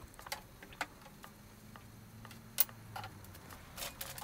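Light, scattered clicks and taps of kitchen things being handled on the counter, with one sharper click about two and a half seconds in, over a faint low hum.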